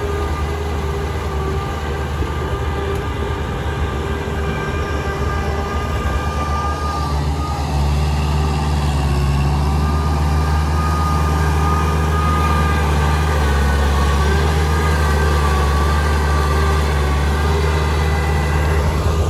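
Kubota M6040SU tractor diesel engines running steadily under load as the tractors work through deep paddy mud: a constant low drone with a fainter high whine above it, growing louder about eight seconds in.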